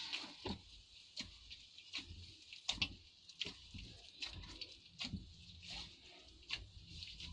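Hands kneading soft wheat-flour roti dough in a stainless steel bowl, pressing it down with the knuckles: faint, irregular soft slaps and clicks, about one or two a second.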